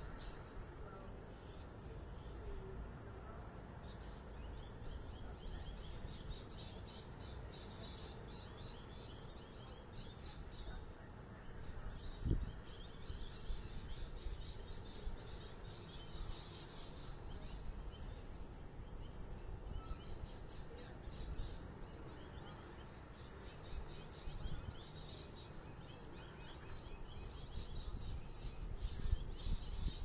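Suburban outdoor ambience: many birds chirping and calling over a steady low background rumble, with one dull low thump about twelve seconds in.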